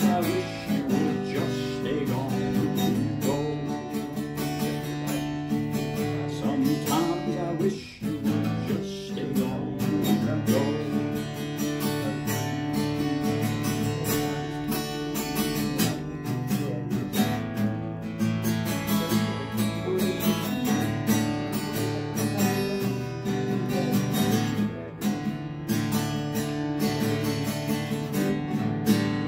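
Acoustic guitar playing an instrumental break with no singing, with a brief drop in loudness about eight seconds in.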